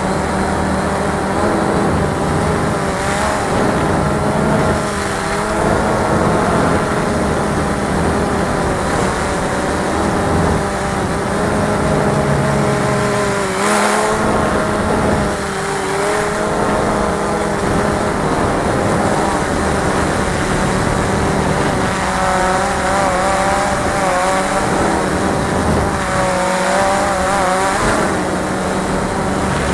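Cheerson CX-20 quadcopter's four motors and propellers whining steadily in flight, heard close up from the camera it carries. The pitch wavers up and down as the motors speed up and slow down to steer, most around the middle and again near the end.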